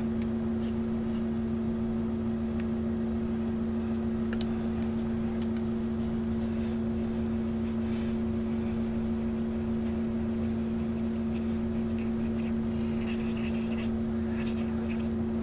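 Steady low hum of room machinery, holding two fixed pitches over an even hiss, with a few faint light ticks.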